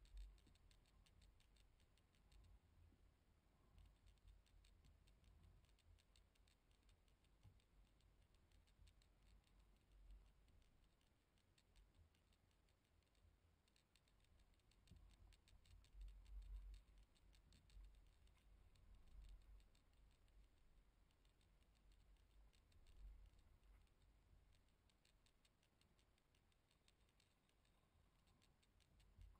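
Near silence: faint uneven low rumbles and scattered light ticking, with a louder rumble about two thirds of the way in.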